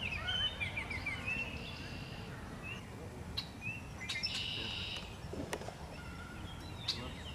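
Outdoor ambience of small birds chirping and singing in short, high phrases over a steady low rumble. A few sharp clicks come about a third, two-thirds and nine-tenths of the way through.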